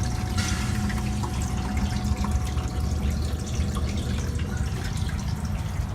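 Water running and splashing through a Manitowoc ice machine during its cleaning cycle, fed from the water distribution tube over the evaporator, over a steady machine hum.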